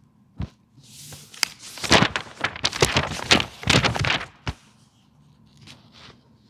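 Handling noise close to the microphone: a sharp knock about half a second in, then a few seconds of dense rustling and clatter ending in another knock, with fainter scattered knocks after.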